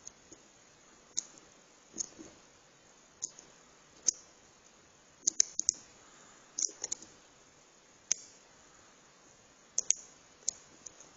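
Lock pick and tension wrench clicking in the keyway of a Chubb padlock: sharp, irregular clicks about once a second, some in quick clusters, as the pins are worked while the lock sits in a false set.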